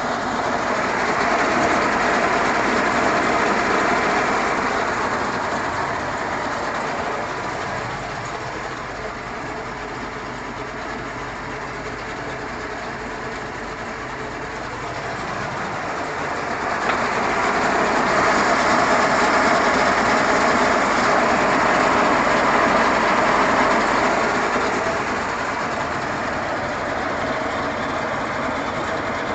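Mercury Racing 525 EFI big-block V8 marine engine running at idle. It gets louder for two stretches, about a second in and again from about 17 to 24 seconds. The owner presents it as running with no oil reaching the cylinder heads.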